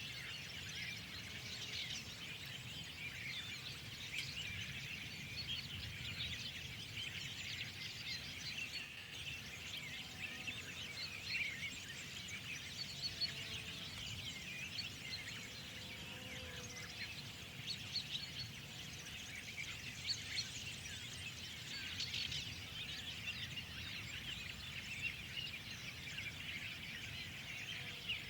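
Dense chorus of many small birds chirping and twittering without a break, over a faint steady low rumble.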